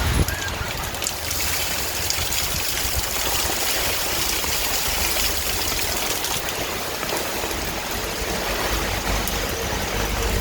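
Heavy rain falling with a steady, even rush of water, with one short click right at the start.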